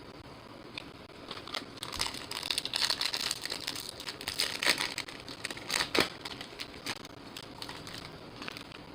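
Crinkling of a foil trading-card pack wrapper and cards being handled, with irregular clicks and crackles that are busiest in the middle and taper off near the end.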